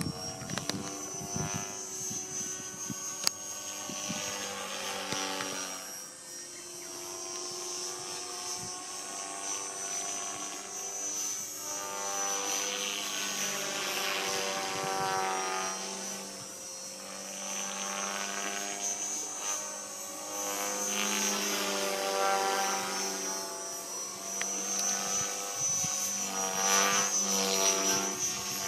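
Radio-controlled model helicopter in flight: its rotor and motor drone, pitch swinging up and down several times as it passes and turns, with a steady high whine above it.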